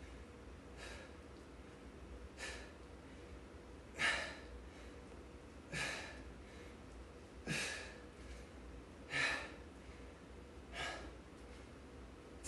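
A man breathing out sharply in short puffs, one with each repetition of a one-arm dumbbell exercise, about every one and a half to two seconds, seven times.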